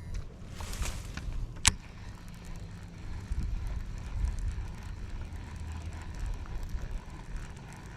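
Wind rumbling on the microphone, with a sharp click about two seconds in and then faint, fast ticking of a fishing reel being cranked to retrieve a crankbait.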